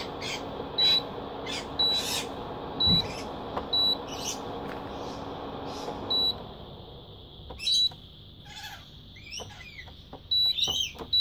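Induction cooker beeping with short high electronic beeps about once a second over its cooling fan; about six seconds in the fan noise stops and the beeps thin out, as the cooker fails to stay on with a bifilar pancake coil as its load. Light clicks and rustles of clip leads being handled.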